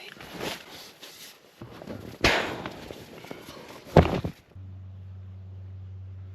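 Rustling and knocking, then two heavy thunks about two seconds apart, like truck doors being shut. After the second, a steady low hum of the truck's engine running sets in.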